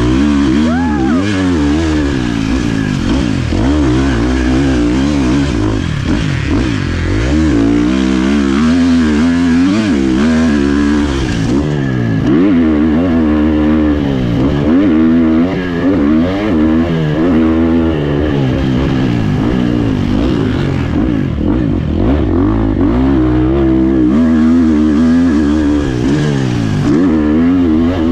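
Husqvarna FC 350 four-stroke single-cylinder dirt bike engine under hard riding, heard from a helmet-mounted camera. It revs up and falls back again and again as the rider accelerates, shifts and rolls off.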